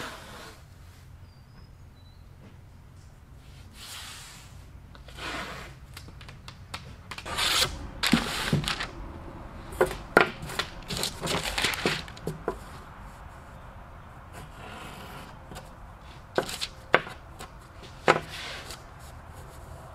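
Brown kraft masking paper rubbed and rustled by hand on a worktable, with a tape roll pressed across it, in several spells of scraping paper noise. A few sharp clicks and snaps come in the second half.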